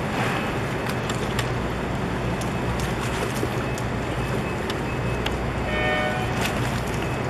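Steady low hum with wind and water noise, scattered with faint clicks. About six seconds in, a brief pitched tone with several overtones sounds over it.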